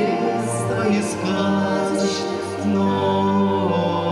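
A woman and a man singing a slow song together into microphones over musical accompaniment, with long held notes.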